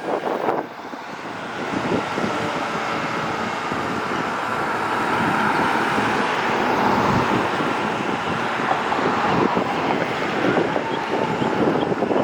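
Road traffic running past, with wind on the microphone; the sound swells over the first few seconds and then holds steady.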